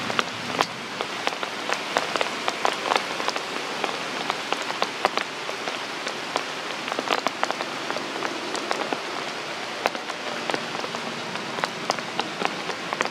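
Steady rain falling, with frequent sharp drops striking close by.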